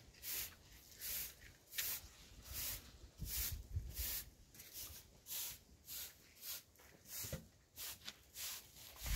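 Straw broom sweeping dusty ground in rhythmic, fairly quiet swishes, about one every 0.7 s, with a few soft low thuds.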